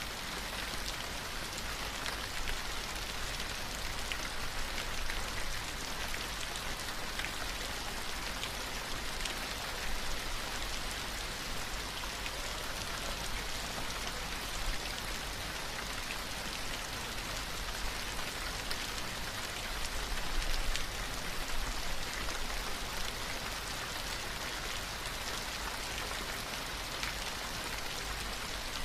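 Steady rain, an even hiss with fine pattering drops, with a constant low rumble underneath.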